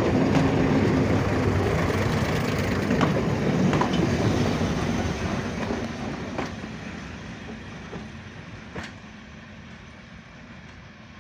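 Class 101 diesel multiple unit moving slowly past at close range: its underfloor diesel engines running and its wheels clicking over rail joints now and then. The sound fades steadily through the second half as it draws away.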